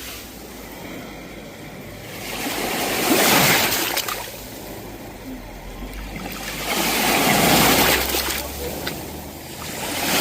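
Sea waves breaking and washing on a shore, surging and falling back about every four seconds: two full waves, with a third building near the end.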